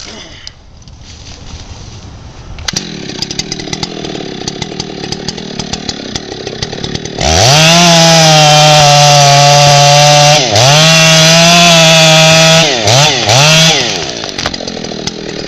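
Stihl 088 chainsaw, a large two-stroke, idling, then opened up to full throttle about seven seconds in and held there, cutting into the base of the trunk. It dips briefly and comes back, gives two quick blips, and drops back to idle near the end.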